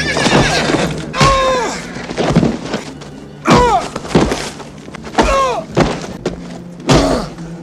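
Film sound of a man being kicked and beaten on the ground: a series of heavy thuds about every one and a half to two seconds, each met with a short pained cry that drops in pitch.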